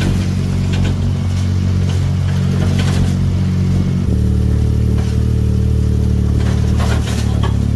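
Buggy car's engine running steadily while driving, its note shifting about four seconds in, with scattered rattles and knocks from the ride.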